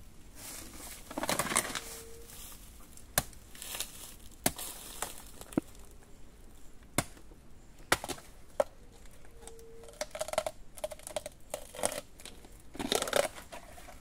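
Knife cutting at the base of a bamboo shoot: a series of sharp, irregular clicks of the blade against the stem, with crackling and rustling of dry sheaths and leaf litter in between.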